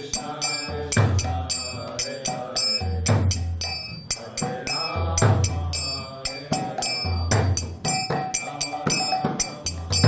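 Devotional kirtan music: small hand cymbals (karatalas) ringing in a steady beat of about four strokes a second, over a low drum and singing voices.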